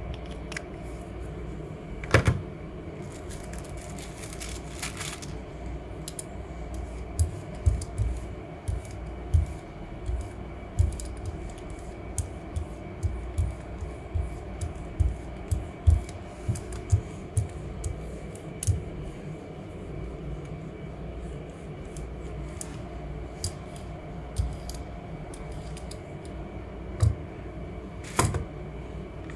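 Hand brayer rolled back and forth over a gel printing plate to spread paint: a run of soft, low knocks about one or two a second through the middle of the stretch, over a steady low hum. A sharper click near the start, and another near the end as the brayer is set down.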